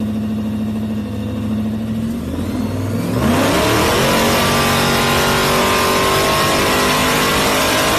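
A classic pickup's engine running on a chassis dynamometer. It holds a steady note at first, then opens up about three seconds in and climbs in pitch, louder, through a full-throttle dyno pull.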